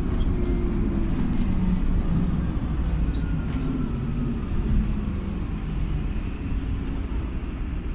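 Inside a LiAZ 5292.67 city bus under way: its YaMZ-53624 compressed-natural-gas engine drones low beneath steady road rumble, the engine note drifting slowly in pitch.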